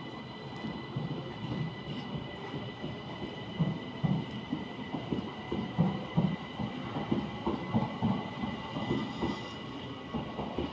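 Train rolling along the track, its wheels knocking irregularly over rail joints, heaviest in the middle, over a steady high-pitched whine.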